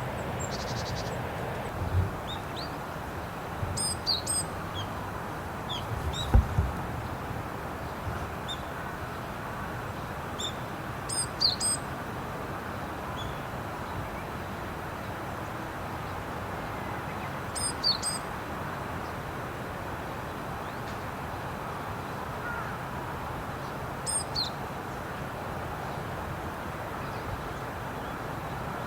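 Japanese tit calling: short, high two-note phrases repeated four times, about every six to seven seconds, over steady background noise, with a couple of low thumps in the first seven seconds.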